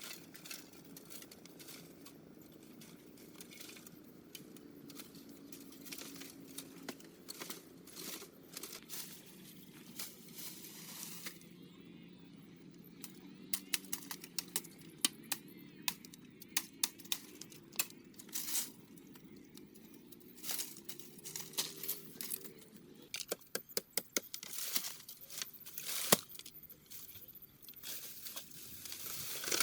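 Irregular sharp clicks, knocks and crackling over a steady low hum; the clicks grow denser near the end, with a few louder knocks among them.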